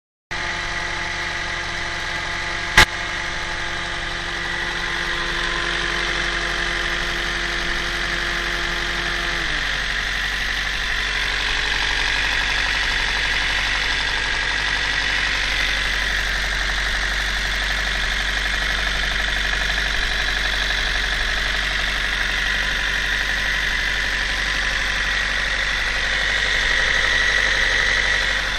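Toyota 1ZZ-FE 1.8-litre four-cylinder engine idling steadily, with the knock in the engine that the owner is trying to show. A sharp click comes about three seconds in, and the idle settles a little lower about ten seconds in.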